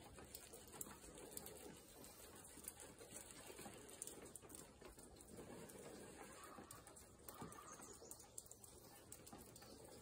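Near silence: faint outdoor ambience with soft bird calls.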